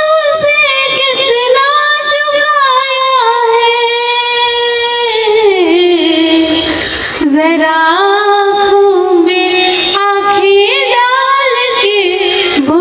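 A woman singing a Hindi poem in a melodious voice into a microphone, drawing out long held notes with a wavering vibrato. About halfway through, the melody slides down, she breaks briefly for breath, and then resumes.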